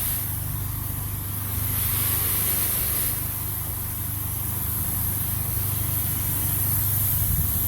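A motor runs with a steady low hum while water sprays from a hose with a hiss that swells and fades.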